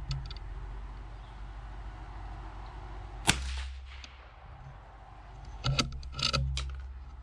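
A single rifle shot about three seconds in: the confirming second shot after a scope adjustment while zeroing. A few sharp clicks follow near the end.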